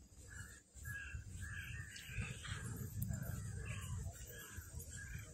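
Birds calling in short notes repeated about twice a second, over a low rumble.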